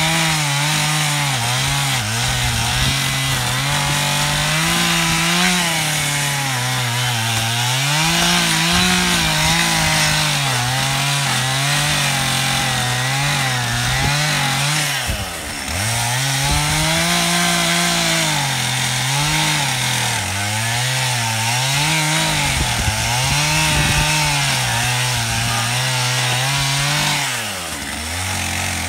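Two-stroke chainsaw cutting into a felled fan palm's trunk, its engine speed rising and falling again and again as the chain loads up in the cut. The engine drops briefly twice, about halfway through and near the end, before revving up again.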